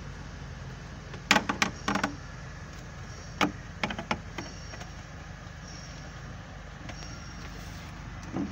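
Sharp plastic clicks and knocks of dashboard trim being handled and pried loose, in two short clusters, over a steady low hum.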